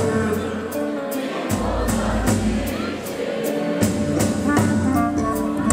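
Live band playing an instrumental break in a Turkish folk song: a clarinet carries the melody over a steady percussion beat.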